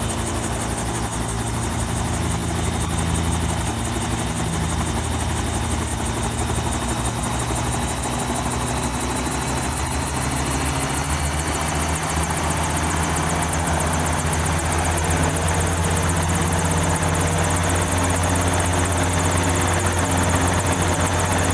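Sicare SVH-4 helicopter trainer's rotor turning steadily, a low hum with a rapid, even blade chop. It grows slightly louder about halfway through.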